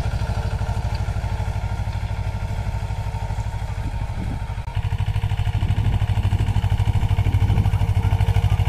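Mahindra Jivo 245 DI 24 hp two-cylinder diesel tractor engine chugging steadily under ploughing load, its firing pulses clearly separate. The engine gets louder about halfway through.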